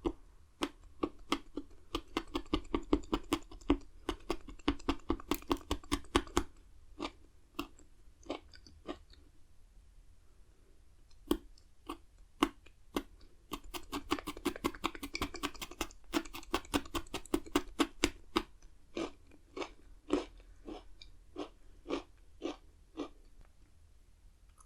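Pocky chocolate-coated biscuit sticks being bitten and chewed with crisp, crunchy snaps. The crunches come in two quick flurries with sparser chews between them, and there is a short pause near the middle.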